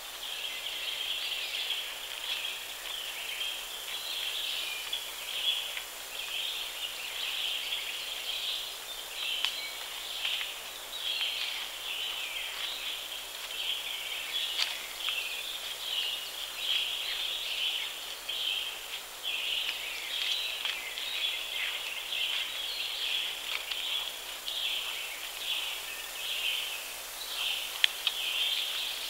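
Insect chorus in the woods: a steady high buzzing that swells and fades in uneven pulses, with a couple of sharp clicks near the end.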